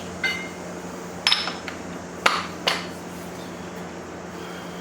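A few short metallic clinks and knocks, about four in all, the first with a brief ring, as hard pieces and tools are handled.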